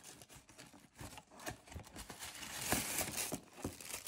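Light taps and scrapes of a small cardboard box being opened by hand, then tissue paper rustling and crinkling about two and a half seconds in as the wrapping is pulled back.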